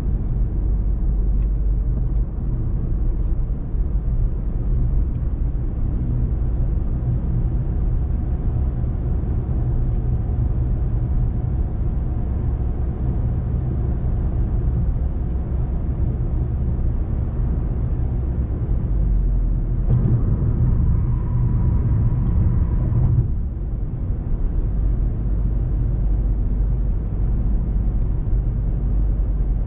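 Car driving on a road: a steady low rumble of engine and tyre noise. For a few seconds about two-thirds of the way in it grows louder, with a faint steady whine, then drops back suddenly.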